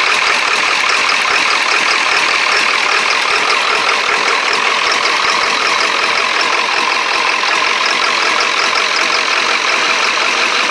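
Ford 7.3 Power Stroke V8 turbo diesel idling steadily, running just after a high-pressure oil pump swap; the owner puts its uneven running down to air in the lines.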